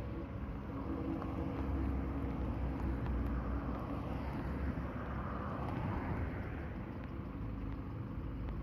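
Minibus engine running and moving slowly close by: a steady low rumble that swells for a few seconds in the middle and then eases.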